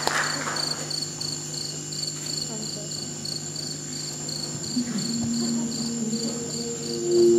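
Cricket chirping played as a stage sound effect, an even high chirp about twice a second. The last of the applause dies away in the first second, and soft music notes come in and swell near the end.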